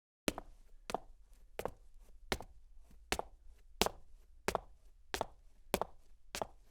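A woman's footsteps walking at a steady pace, about three steps every two seconds, each step a sharp click; they start about a quarter second in, out of silence.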